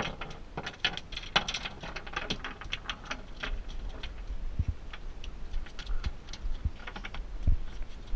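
Sharp clicks and taps of fishing tackle being handled on a fiberglass boat deck, thick for the first few seconds and then sparser, with a few dull thumps in the second half.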